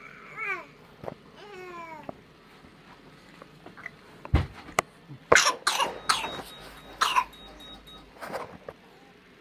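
A baby gives two short cries that fall in pitch, then after a thump comes a run of about five coughs, the loudest sounds here.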